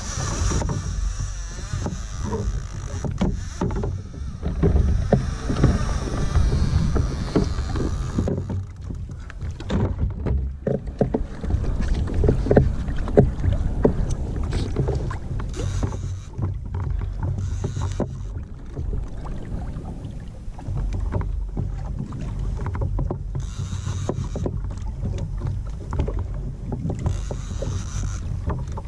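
Wind rumbling on the microphone and water slapping and splashing against a fishing kayak's hull, with scattered knocks.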